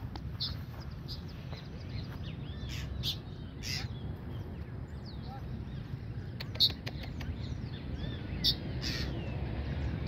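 Birds giving short, sharp alarm calls at irregular intervals, with the loudest a little past halfway and near the end, while defending their chick from a small dog. A steady low rumble runs under the calls.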